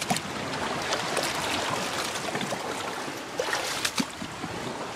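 Shallow water lapping and trickling against the aluminium hull of a small boat, with a few light knocks and clicks scattered through it.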